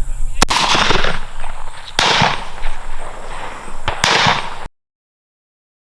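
Three shotgun shots at doves, about two seconds apart, each with a short echo trailing off; the sound then cuts off abruptly.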